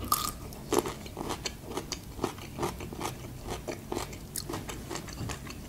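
A person biting into a small pickled gherkin and chewing it, giving a run of irregular crunches.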